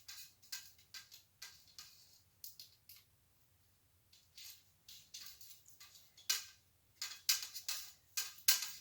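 Stainless steel bicycle spokes clicking and clinking against each other, the hub flange and the rim as they are threaded through while lacing a wheel: a string of light metallic ticks, with a short pause about three seconds in and louder clinks toward the end.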